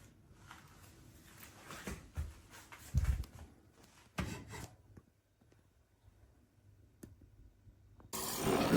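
Handling knocks and rubbing on a Philips L'OR Barista capsule coffee machine, then near the end its pump starts with a sudden loud, steady buzz as it begins to brew.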